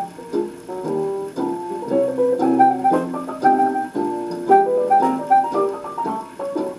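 Piano-led music from a 78 rpm record playing on a 1948 RCA 63E record player through its small built-in speaker, thin, with almost no bass.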